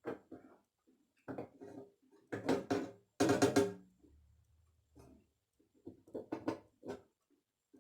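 Several sharp metal knocks and clanks, a few ringing briefly, the loudest about three seconds in.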